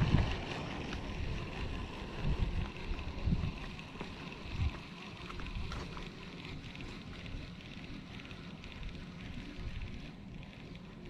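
Wind buffeting the microphone in low gusts, loudest at the start and again a few times in the first five seconds, over a steady outdoor hiss.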